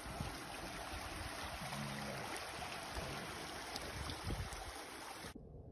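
Small mountain stream running over rocks: a steady rush of water, with low rumbles of wind on the microphone, that cuts off abruptly near the end.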